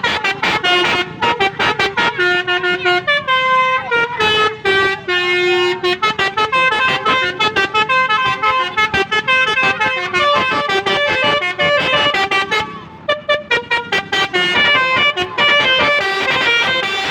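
Telolet 'basuri' musical car horn on a Toyota Avanza playing a tune: a run of held horn notes that step up and down in pitch, mixed with quick staccato toots.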